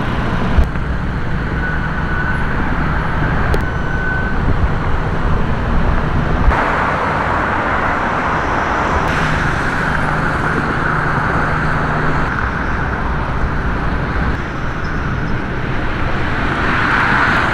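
Steady road traffic noise: cars driving past with a continuous tyre and engine rumble.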